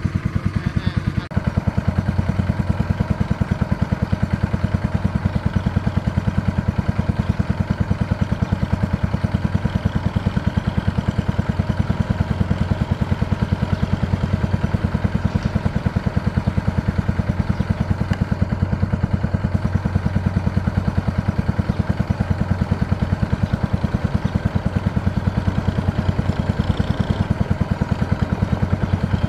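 Kubota M6040SU tractor's four-cylinder diesel engine running steadily with a fast, even chug as it hauls a loaded trailer of rice sacks.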